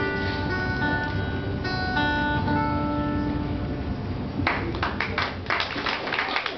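Acoustic guitar picking the closing notes of a song and letting them ring. About four and a half seconds in, audience clapping starts.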